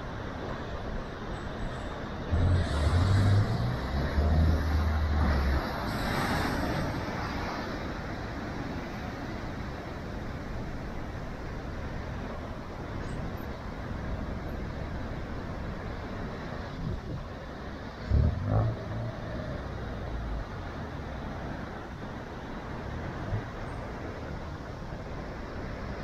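Big waves breaking on rocks: a steady roar of surf, with louder crashes and deep booms from about two to seven seconds in and again around eighteen seconds.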